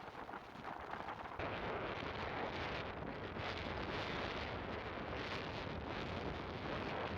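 Atlantic surf washing onto the beach, mixed with wind on the microphone; the wash swells louder about a second and a half in and stays up.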